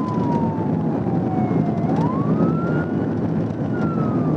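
Police car siren on a slow wail: one tone sliding down, sweeping back up about two seconds in, then sliding down again, over steady engine and road noise from the patrol car in pursuit.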